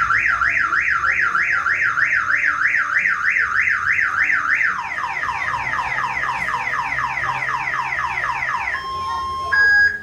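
Car alarm siren sounding loudly. It starts as a fast rising-and-falling wail, about three sweeps a second. About five seconds in it switches to quicker falling sweeps, about four a second, and ends with two short steady beeps, the second higher and louder.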